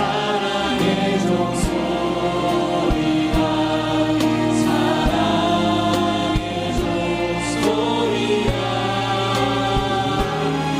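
A worship band plays a slow hymn with a choir of voices singing along, over a steady drum beat with occasional cymbal washes.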